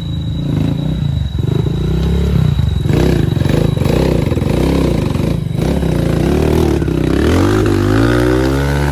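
Dirt bike engine revving hard and unevenly as the bike claws through deep mud, its pitch wavering up and down and then climbing steeply near the end.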